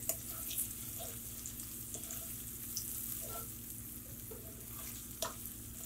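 Cumin and mustard seeds, green chili, ginger and ground spices frying in a little hot oil in a nonstick pan: a quiet, steady sizzle, with a wooden spoon stirring and scraping the pan and a few light clicks.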